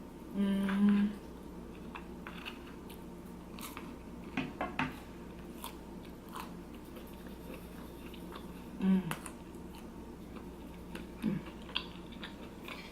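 Close-up eating sounds: a person taking crunchy bites of a crispy fried empanada and chewing, with scattered sharp crunches. A few brief vocal sounds from the eater come in between, the loudest about half a second in and another near the end.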